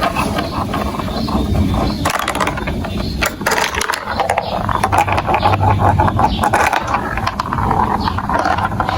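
Marbles rolling and clattering along plastic building-block marble run tracks, a continuous rattle of many small clicks.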